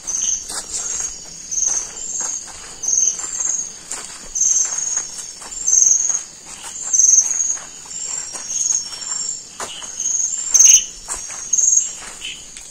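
Night insects chirping in rapid, high-pitched pulses throughout, with uneven footsteps and rustling of plants as someone walks along a path.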